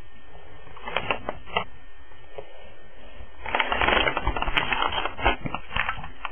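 Handling noise on the camera's microphone as the camera is picked up and turned around: a few clicks about a second in, then a denser stretch of rubbing and knocking from about halfway through.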